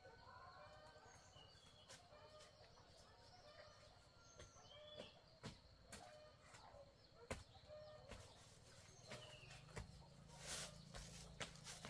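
Quiet forest background with faint scattered bird chirps. Footsteps and the rustle of leaves and a woven basket come closer and louder near the end.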